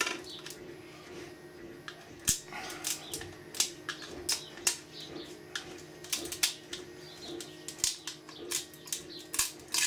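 Irregular clicks and scrapes of a small metal-tipped tool picking and prying printed support material out of the grooves of a 3D-printed ABS part, with bits of plastic snapping free, over a low steady hum.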